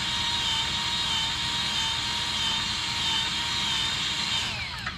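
Milwaukee M12 cordless grease gun motor running with a steady whine as it pumps grease into the fitting on a stump grinder's cutter-wheel bearing; near the end the motor winds down and stops.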